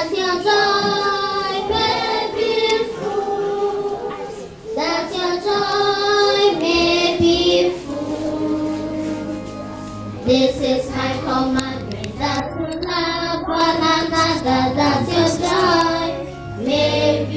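Children singing a song together in phrases with short breaks between them. A steady low note joins about halfway through.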